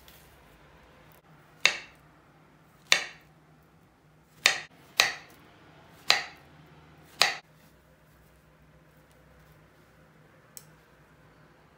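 Kitchen knife slicing a peeled banana on a bamboo cutting board: six sharp knocks of the blade meeting the board, roughly one a second. A single faint tap follows near the end.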